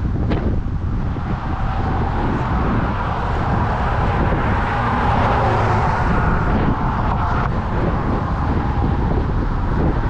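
Steady rumbling noise of a moving vehicle, with a hum in it that cuts off about seven and a half seconds in.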